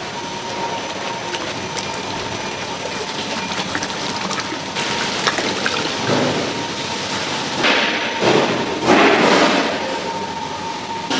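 Food-processing machinery running with a faint steady hum under a rushing, hissing noise that swells in several louder surges in the second half.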